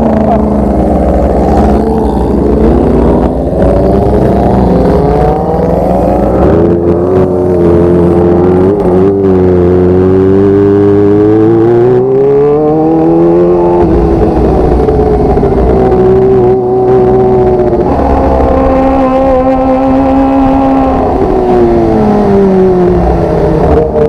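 Motorcycle engine running while riding, its pitch rising and falling again and again as the throttle is opened and closed through the gears, over a steady low rumble.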